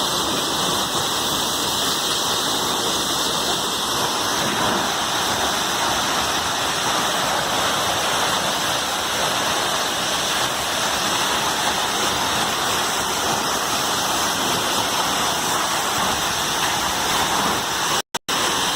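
A waterfall's falling water, a steady, unbroken rush. It drops out briefly twice near the end.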